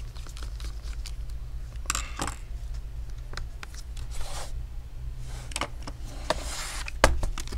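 Light clicks and scraping of a screwdriver working the metal hinge screws of a laptop, and hands handling the laptop, over a low steady hum. A sharper click comes about seven seconds in.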